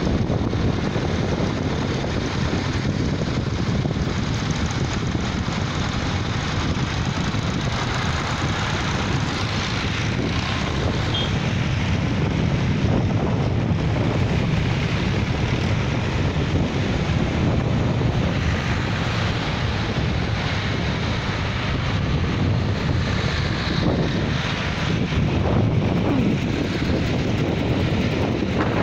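Engines of a procession of vintage tractors driving past below, a steady mixed engine drone with no single tractor standing out.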